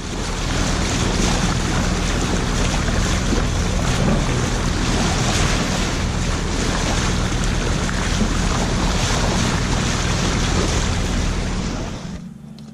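Sea water rushing and splashing along the hull of a sailboat under way, with heavy wind buffeting on the microphone and a steady low hum underneath; it drops away near the end.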